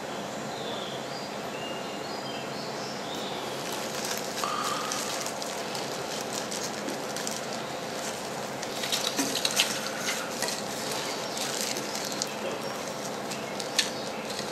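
Gloved hands crumbling and sifting loose beetle-rearing substrate in a plastic tray: soft crackling and rustling of the crumbling substrate and the thin plastic gloves. It starts a few seconds in and is busiest past the middle, with one sharp tick near the end, over a steady background hum.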